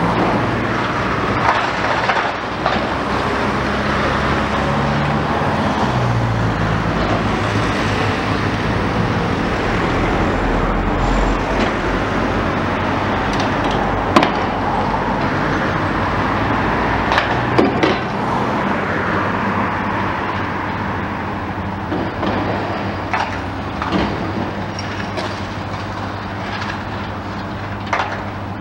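Demolition excavator's diesel engine running steadily, its note shifting a few seconds in, while its hydraulic crusher jaws work at a brick wall: sharp cracks and knocks of breaking brick and concrete every few seconds, the loudest crack about halfway through.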